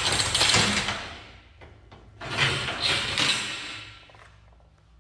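Garage door torsion spring being slid along and off the steel torsion tube: two long scraping rushes of metal on metal, the second starting a little after two seconds in.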